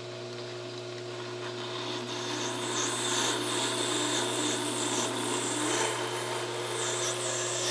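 Metal lathe running, with a twist drill in the tailstock boring into black acetal (Delrin) bar stock. A steady motor hum sits under the scraping cutting noise, which grows louder as the drill goes deeper and the chips curl out.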